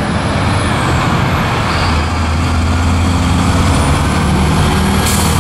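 Road traffic with heavy trucks passing: a steady low drone of big truck engines under tyre and road noise, and a short hiss near the end.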